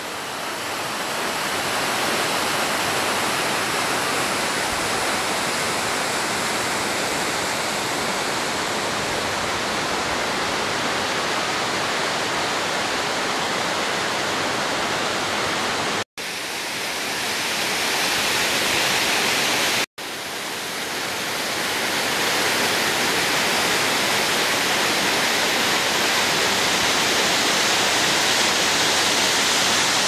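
Waterfall and its stream rushing, a steady wash of water noise. It is broken by two brief silent gaps about sixteen and twenty seconds in.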